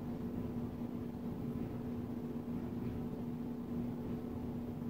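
Steady background hum with a constant low tone and a faint hiss, unchanging throughout.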